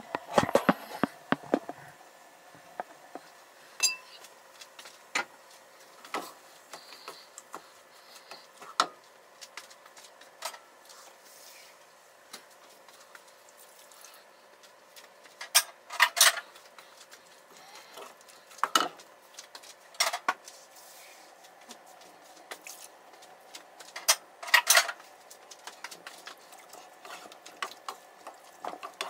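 Cookware noises at a stove: a spatula and pot lids knocking, clinking and scraping against metal pans as food is stirred. The knocks are scattered, with louder clusters about halfway through and again near the end, over a faint steady hum.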